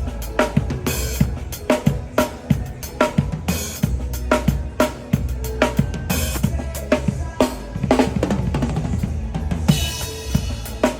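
Drum kit playing a funk groove: kick and snare strokes with rimshots and cymbals, over a steady low bass, and a cymbal crash ringing out about ten seconds in.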